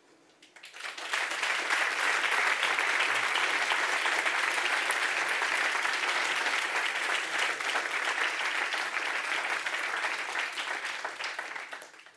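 Audience applauding: the clapping builds up within the first second, holds steady for about ten seconds, then dies away just before the end.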